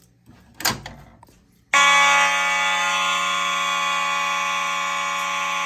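A brief clack, then a little under two seconds in several Simplex 4903-series fire alarm horns start all at once, set to continuous. They blare together in one steady, unbroken chord of tones.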